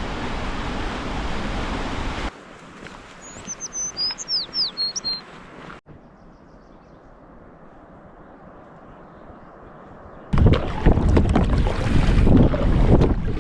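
Outdoor sound in several short cuts: a loud, even rushing noise, then a bird giving a short run of high chirps over a quiet background, then a faint stretch, and a loud rush again about ten seconds in.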